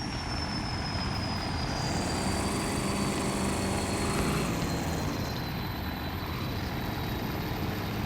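Diesel pickup truck engine running, its note rising and swelling from about two seconds in and settling back a couple of seconds later. A thin high whine slowly falls in pitch throughout.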